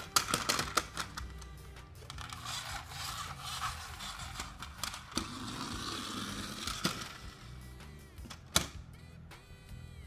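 Small toy cars clicking and clattering against each other as they are handled in a cardboard box, with a stretch of rustling scraping in the middle, as of a toy car rolling over a corrugated plastic sheet, and one sharp click near the end. Background music plays throughout.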